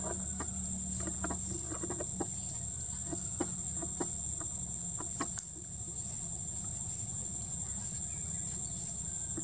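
Steady high-pitched insect drone with a low background rumble, and a run of short clicking or clucking sounds over the first five seconds.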